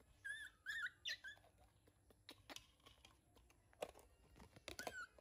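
Hungry baby macaque giving short, high squeaks while struggling with its milk bottle: a cluster of three in the first second or so and more near the end, with a few light taps in between.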